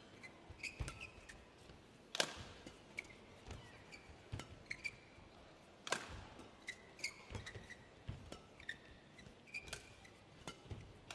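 Badminton rally: crisp racket strikes on the shuttlecock, the hardest about two seconds in and again about six seconds in, with lighter hits and short squeaks of players' shoes on the court between them.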